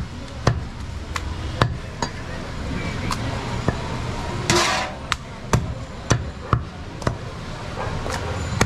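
Butcher's knife chopping goat meat on a wooden log chopping block: a steady run of sharp chopping strikes, about one to two a second, with a short rasping noise about halfway through.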